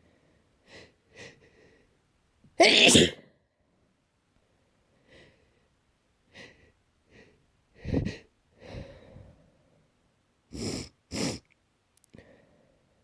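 A person sneezing repeatedly in an allergy fit, which they put down to grass pollen: the loudest sneeze comes about three seconds in and another strong one near eight seconds. A close pair of sharp bursts follows near the end, with quieter short breathy sounds in between.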